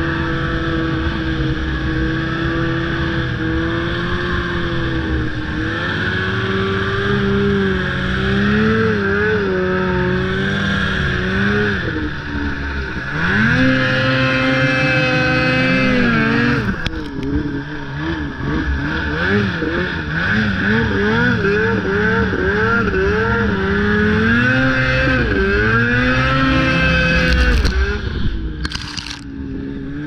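Snowmobile engine running under way as the machine crosses snow. Its pitch climbs sharply about halfway through and holds, then rises and falls quickly many times before dropping off near the end.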